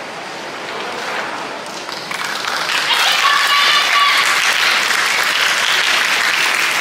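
Audience applauding, swelling louder about two and a half seconds in.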